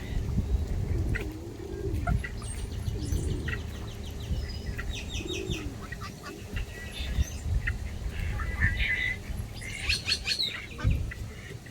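Birds chirping, with several quick trilled runs of short notes, over a steady low rumble.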